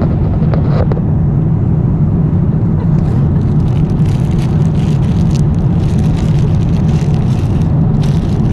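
Steady low drone of a jet airliner's cabin in flight, the engines and air noise running at a constant level. From about three seconds in, irregular rustling and handling noises close to the microphone.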